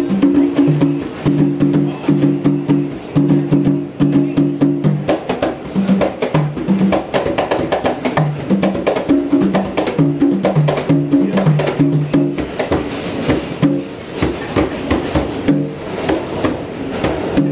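Several hand drums played together in a fast, steady rhythm: sharp slaps over deep tones that repeat in a pattern.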